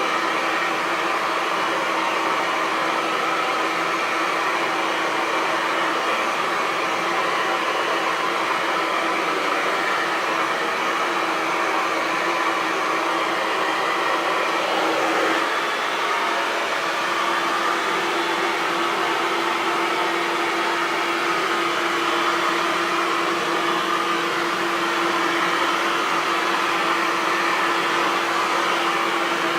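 Hair dryer running steadily: a continuous whoosh of air over a motor hum. The hum steps slightly in pitch about halfway through.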